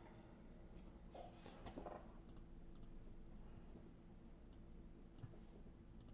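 Near silence: room tone with a few faint, scattered clicks and a little soft rustling.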